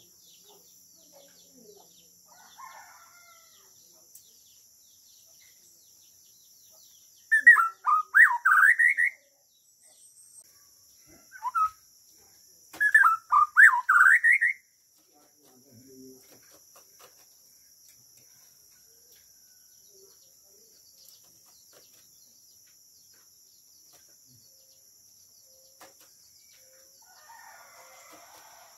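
Caged shama (murai Borneo) singing two short bursts of rapid, loud whistled notes, about seven and thirteen seconds in, with a single short note between them. A faint steady high-pitched insect drone runs underneath.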